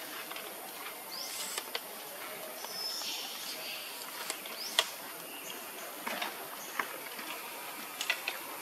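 Outdoor natural ambience: a few short, high rising chirps and scattered sharp clicks over a steady high hiss.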